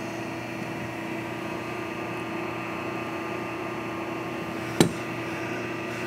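Steady mechanical background hum with a faint steady tone, like a fan or air handler running in a workshop. One short, sharp click sounds near the end, as a small metal fixture is handled against a steel tube.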